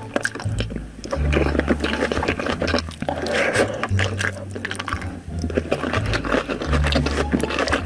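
Close-miked eating sounds: wet chewing and lip smacking of dal and rice, with a dense run of small clicks throughout.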